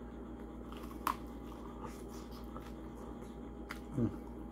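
Quiet room with a faint steady hum. There is one sharp click about a second in, and a short low 'mm' from the eater near the end as he handles a stiff, crispy pizza slice.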